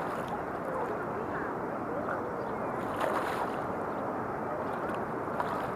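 Steady rushing noise of flowing river water and wind, with a brief clatter about three seconds in.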